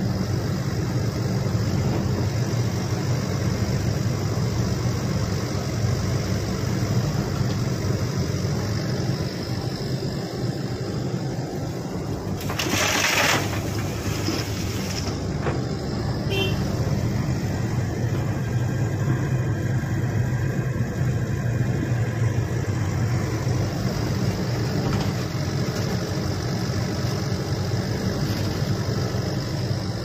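Shantui SE135 hydraulic excavator's diesel engine running steadily while working. About halfway through, a rushing hiss lasts roughly two seconds.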